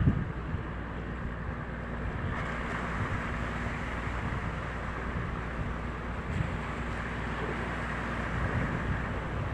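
A boat's engine running steadily under water rush, with wind buffeting the microphone.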